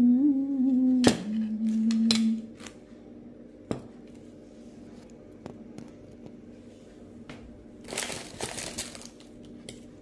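A woman humming a steady note with her mouth closed for the first two seconds or so, with a sharp click about a second in. Then a quiet stretch, and about eight seconds in a second-long crinkling rustle of something being handled.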